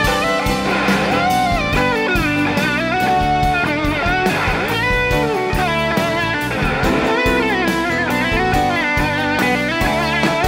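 A live blues-rock band playing an instrumental passage: an electric guitar solo with bending, wavering notes over the rest of the band.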